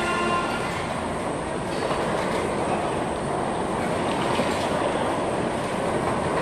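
Carousel running: the steady mechanical noise of its turning platform and drive machinery.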